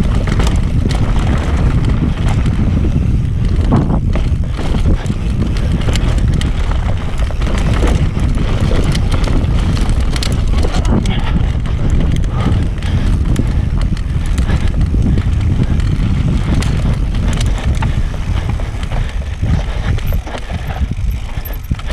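Transition Patrol mountain bike descending dirt singletrack at speed: wind buffeting the microphone and tyres rolling on dirt, with constant rattles and knocks from the bike over roots and rocks. The noise eases a little near the end.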